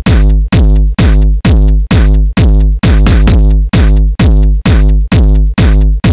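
Loud electronic music: a heavy drum-machine beat at about two hits a second, each hit with a falling pitch sweep.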